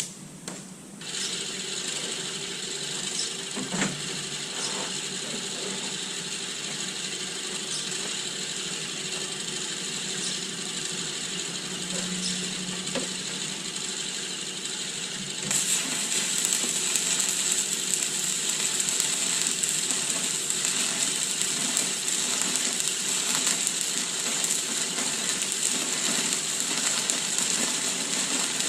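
Stick (arc) welding with a 6013 electrode at about 70–75 amps, laying a root pass: the arc crackles and sizzles steadily. It starts about a second in and gets louder and brighter about halfway through.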